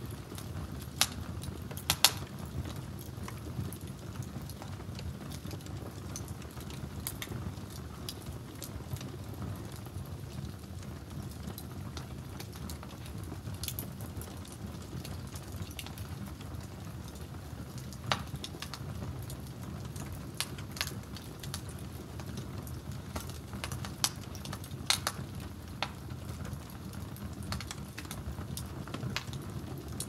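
Open wood fire crackling under a pot, with scattered sharp pops, the loudest about two seconds in. Underneath runs a steady low rumble of the flames and the pot boiling.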